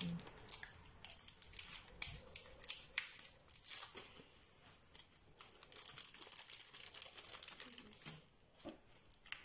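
Homemade slime being kneaded and stretched by hand to mix pink colour into a white base, giving off a run of small, irregular crackles and clicks.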